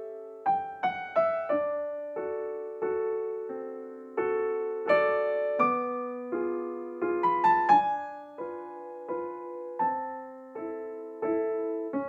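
Background piano music: a slow, gentle tune of struck notes and chords, each left to ring and fade.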